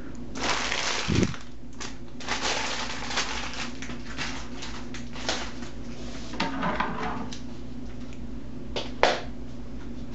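Crumpled plastic wrap and a mailer bag crinkling and rustling as they are gathered up and taken off the table. The crackling comes in a run of bursts over the first seven seconds or so, with a soft thump about a second in and one short rustle near the end, over a steady low hum.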